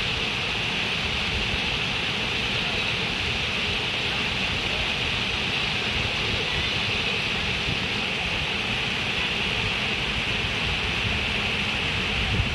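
Water flowing steadily, a continuous even rush with no breaks.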